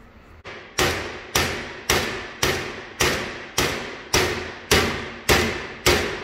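Hammer striking a bearing race driver to drive a new outer tapered-bearing race into a 1966 Ford Mustang front drum hub: about ten steady blows, roughly two a second, each ringing briefly.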